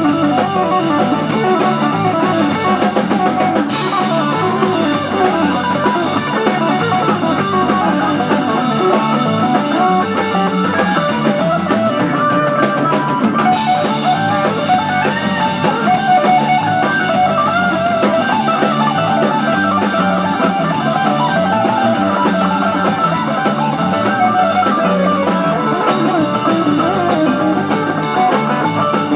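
Live rock band playing an instrumental, with electric guitar over drum kit and bass, steady and loud.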